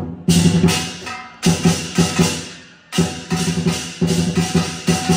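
Chinese drum and cymbal percussion playing a rhythmic accompaniment: groups of quick strikes, each group ringing out and fading before the next comes about a second or so later.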